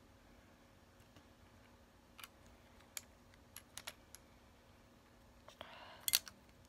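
Faint, scattered clicks and taps of the hard plastic parts of a Transformers Sideswipe action figure as it is handled and its pieces are moved and fitted. Near the end there is a short rustle followed by a few louder clicks.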